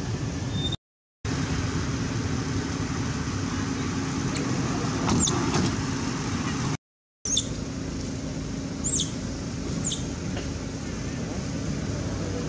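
Steady outdoor background rumble with a faint low hum, like distant traffic, that cuts out to silence twice for a moment. In the second half come a few short, high squeaks that fall in pitch.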